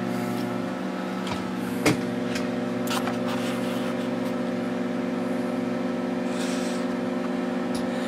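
Microwave oven running with a steady electrical hum while a plastic toy spider burns inside it, giving a few sharp crackles; the loudest comes nearly two seconds in.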